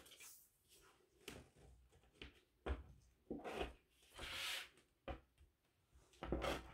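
Quiet handling sounds of sewing work on a table: sheer organza fabric rustling under the hands, a tape measure and tailor's chalk set down and moved, with a few soft knocks and one longer rustle about four seconds in.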